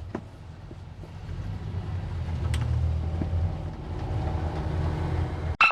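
Boat engine running at low speed, a steady low rumble that swells about a second in and then holds. A higher whine cuts in right at the end.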